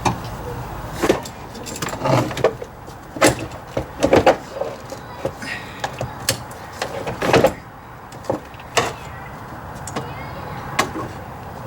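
Irregular sharp clunks and knocks of hard plastic and metal parts being handled in a car's engine bay during a battery swap, busiest in the middle and sparser near the end.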